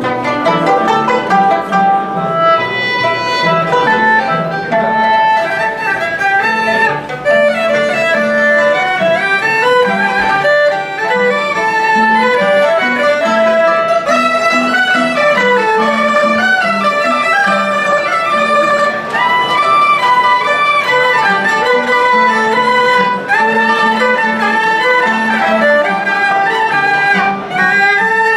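Chinese traditional string ensemble playing a flowing melody: erhu fiddles bowing the lead line with pitch slides, over a pulsing low accompaniment of short repeated notes from plucked pipa and cello.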